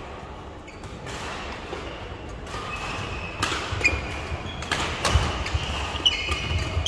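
Badminton play in a sports hall: sharp strikes of rackets on the shuttlecock, short squeaks of court shoes and dull footfall thuds, picking up about three seconds in.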